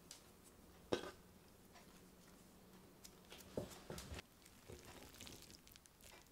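Faint, scattered clicks and soft knocks over quiet room tone. The sharpest is a single click about a second in, and a cluster of knocks comes around the four-second mark.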